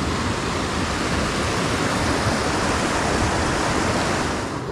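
Steady rush of fast-flowing water in a rain-swollen, flooded creek.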